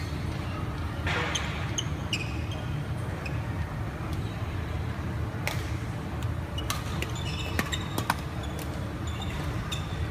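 Badminton rally: sharp strikes of rackets on a shuttlecock, most of them in the second half, with short squeaks of shoes on the wooden court over a steady low hum.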